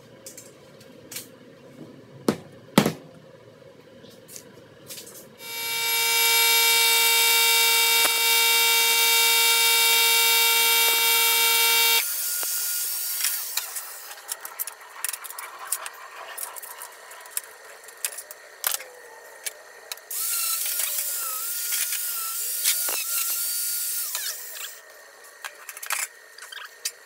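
A power tool's motor running at a steady high pitch for about six seconds, after a few clicks and knocks. It cuts off suddenly and gives way to thinner, hissing tool noise and metal clinks, loudest for a few seconds near the end.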